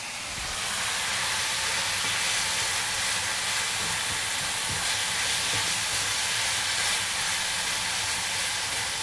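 Ground beef and diced onions sizzling steadily in a nonstick frying pan, stirred and scraped with a wooden spatula. The mince is being sautéed only to a half-raw, half-cooked stage.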